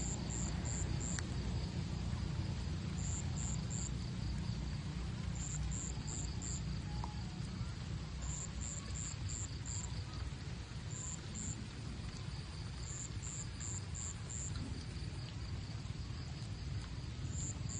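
An insect chirping in short groups of three to five quick, high pulses, a group every two to three seconds, over a steady low rumble.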